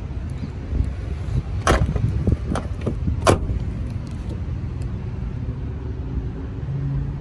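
Steady low rumble with several sharp knocks between about one and a half and three and a half seconds in. A steady low hum comes in near the end.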